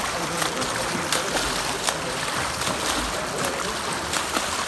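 Water splashing and sloshing in a steady rush, with irregular sharp splashes, as of someone swimming in a wetsuit in open water.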